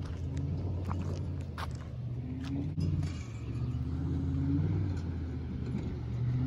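2011 Ford F-150's 5.0 Coyote V8 revving up and falling back over and over as the pickup spins donuts on gravel, with scattered clicks. The sound breaks off for an instant about three seconds in and comes back louder.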